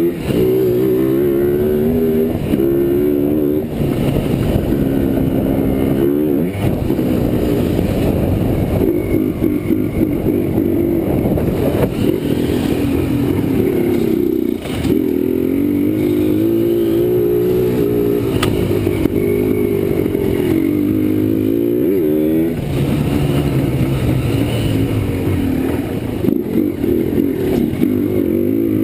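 Yamaha Blaster's single-cylinder two-stroke engine, heard from on board while the quad is ridden along a dirt trail. It revs up and down over and over, its pitch repeatedly climbing and falling with the throttle.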